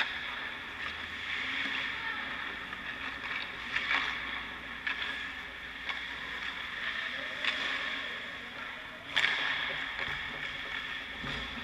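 Ice skate blades scraping and carving on rink ice, with three sharp clacks about four, seven and a half, and nine seconds in, the last the loudest.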